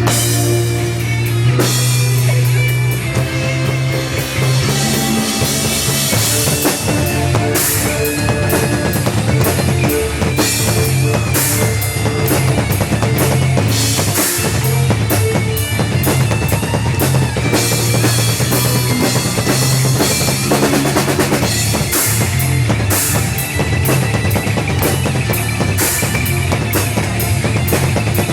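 Rock music with a drum kit playing a steady beat of kick and snare under a moving bass line.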